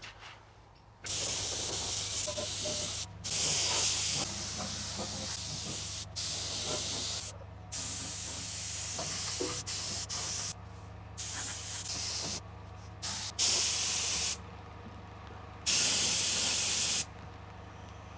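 Black paint being sprayed onto a Land Rover chassis, a hissing spray in repeated bursts of one to three seconds with brief pauses between them.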